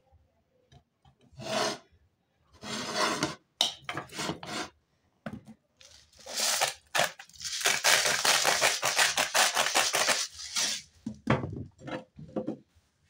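Raw asparagus spears and cherry tomatoes being handled and shifted in a ceramic bowl: bursts of rubbing and rustling with light knocks against the bowl, busiest from about six to eleven seconds in.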